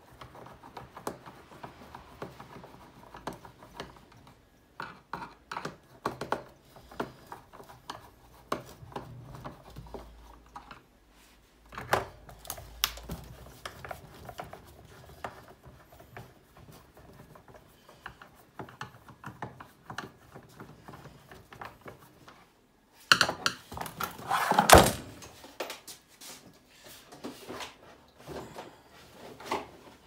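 A screwdriver working screws out of a plastic canister vacuum cleaner's housing: scattered clicks, taps and scrapes. About three quarters of the way through comes a louder clatter and thumps as the plastic body is handled and set down.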